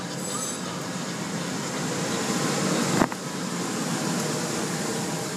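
Tunnel car wash equipment running, heard from inside a car's cabin: a steady rushing noise that slowly builds, with one sharp knock about three seconds in.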